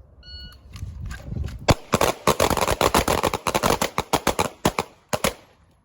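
A short electronic shot-timer beep, then a line of pistols firing many rapid, overlapping shots for about three and a half seconds before stopping.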